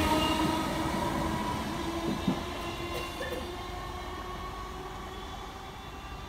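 Class 313 electric multiple unit departing and receding down the line, its running sound fading steadily, with a couple of faint knocks about two seconds in.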